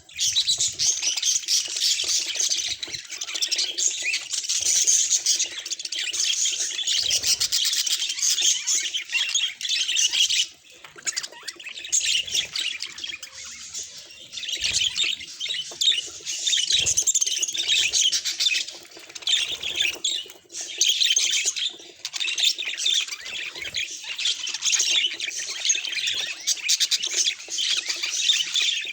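Budgerigar chatter: a dense, continuous stream of rapid high chirps and warbles, broken by a few short pauses.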